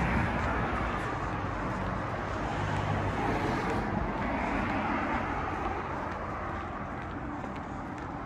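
Road traffic: cars passing on a city street, tyre and engine noise swelling about four seconds in and easing off toward the end.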